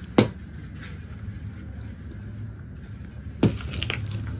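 White plastic packing straps on a cardboard carton being cut and pulled loose: a sharp snap just after the start and another about three seconds later, over a steady low hum.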